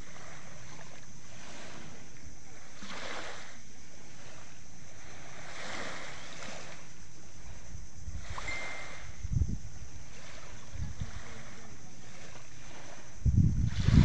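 Small sea waves lapping on a pebble beach: a steady wash that swells every few seconds. Low, uneven rumbles about nine seconds in and again near the end, as a larger wave breaks at the shore.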